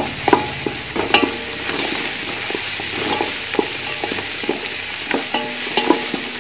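Chopped onions, crushed ginger and garlic sizzling in hot oil in a large metal pot while being stirred with a wooden spatula, which knocks and scrapes against the pot many times.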